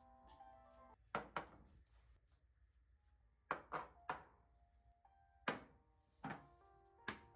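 About eight sharp knocks of hard objects, coming singly and in quick pairs at irregular gaps, over faint background music.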